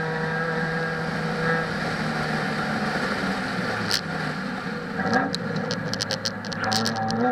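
Proton Savvy's 1.2-litre Renault D4F four-cylinder engine at racing revs on a time-attack lap: steady and high, easing off with a drop in pitch just before four seconds in, a short upward rev about a second later, then pulling up in pitch again near the end. A quick run of sharp clicks sounds over it in the last couple of seconds.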